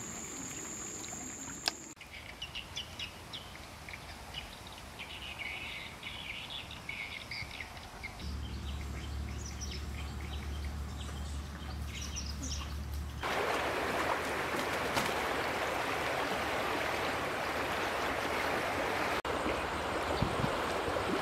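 Birds chirping in short, scattered calls over quiet outdoor ambience, then, a little past halfway, a steady rushing hiss of flowing water takes over.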